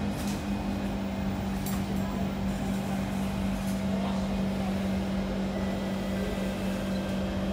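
Kawasaki C151 electric multiple unit running along the line, heard from inside the carriage as a steady low hum over even rolling noise, with a faint click or two.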